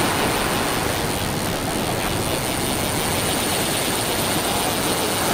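Steady rushing noise of sea surf on the beach, mixed with wind, with no distinct events.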